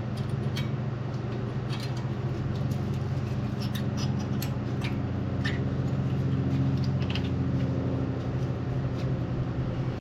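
Scattered light clicks and taps of brake pads and their metal parts being handled and fitted into the caliper bracket, over a steady low hum.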